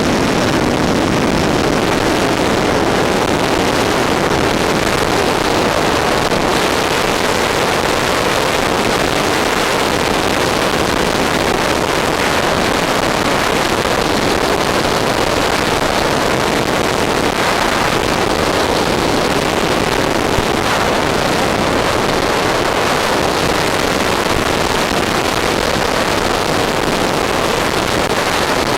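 RC model F-14 Tomcat in fast flight: a loud, steady rush of motor and airflow with no clear pitch, running evenly throughout.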